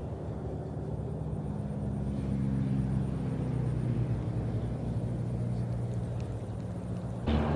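A motor engine running steadily with a low, even hum. Near the end a louder rushing noise starts.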